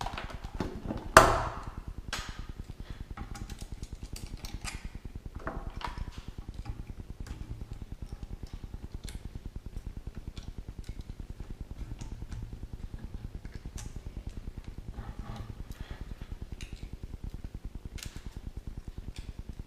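Hands handling an unboxed aluminium LED light and its packaging: scattered small clicks and knocks, with one sharp knock about a second in, over a steady low hum.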